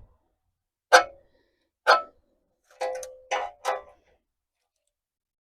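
About five sharp metallic clinks and taps in quick succession, as steel pieces or hand tools are handled on a workshop bench; one, about three seconds in, rings briefly.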